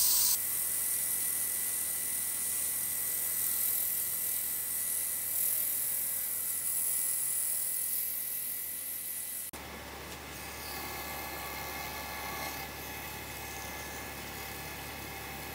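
Wood lathe running with a wood-and-resin disc spinning, a hand-held pad pressed against the turning face giving a steady hiss. About two thirds through it changes abruptly to a quieter, steady lathe hum with a faint whine as a bare hand rubs the spinning surface.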